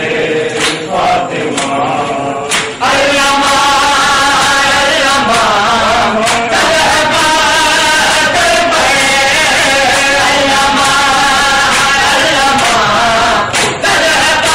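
Men's voices chanting a Shia mourning lament (noha) together, loud and continuous. Sharp chest-beating strikes land about twice a second in the first few seconds, and the chanting swells in about three seconds in.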